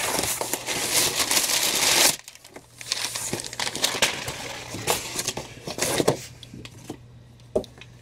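Cardboard shipping box being opened and rummaged: cardboard flaps and packing rustling and scraping, a continuous rustle for about two seconds that stops sharply, then scattered scrapes and taps that thin out toward the end.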